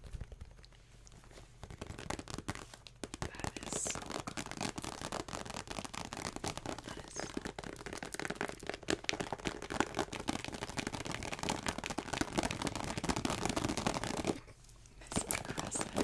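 Clear plastic makeup pouch crinkled and handled right against the microphone: a dense crackling that stops suddenly about fourteen seconds in.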